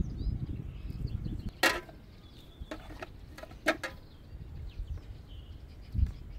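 Spring onions being snapped and trimmed by hand: a few short, sharp snaps and clicks, the loudest about a second and a half in and a cluster around the middle, with a low thump near the end. A low rumble runs under the first second or so.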